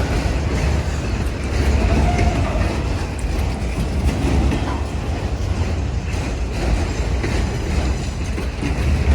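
Freight train cars rolling past close by: a steady low rumble with rattling wheel-and-rail noise.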